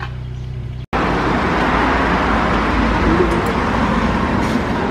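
Moving car: a low steady engine hum, then after a sudden cut about a second in, loud, even road noise.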